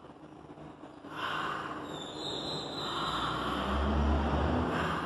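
A woman yawning on purpose, a long breathy yawn through a wide-open mouth that starts about a second in and runs for several seconds. A low rumble sits underneath near the end.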